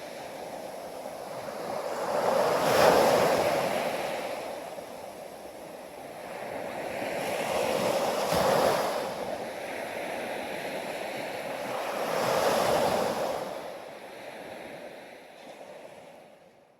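Sea waves breaking on a beach, the surf rushing up in three swells a few seconds apart, then fading out at the end.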